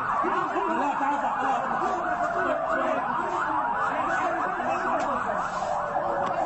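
Several sirens sounding at once: fast, repeating rising-and-falling wails, with one long tone slowly dropping in pitch.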